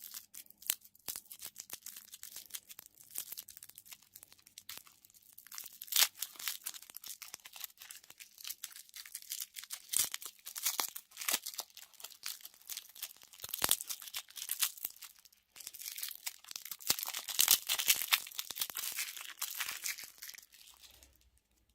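Plastic candy wrappers being torn open and crinkled by hand, a dense run of sharp crackles that comes in bursts and stops just before the end.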